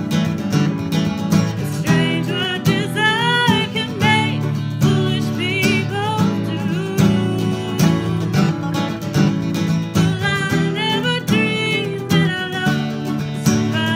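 Two acoustic guitars strummed together, with a woman singing the melody over them; her voice comes in a couple of seconds in.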